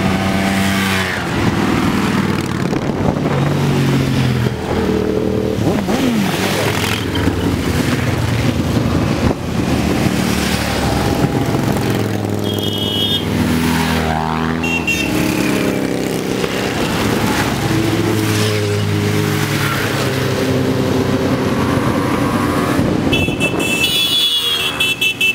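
A procession of motorcycles and scooters riding past one after another, overlapping engine notes rising and falling as each bike goes by, with tyres hissing on the wet road.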